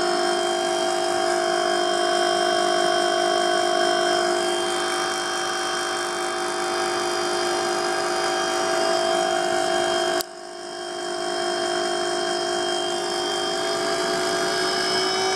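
E-Max brushless outrunner motor spinning a magnet rotor behind a copper plate, giving a steady electric whine of several fixed tones. About two-thirds of the way through there is a click and a brief drop in level, and near the end the pitch creeps up slightly.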